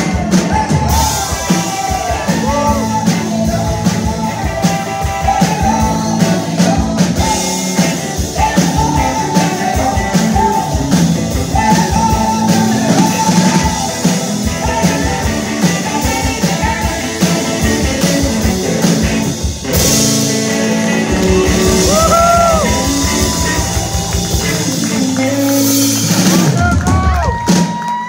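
Live rock and roll band playing: singing over a strummed acoustic guitar, an electric guitar and a drum kit, loud and steady.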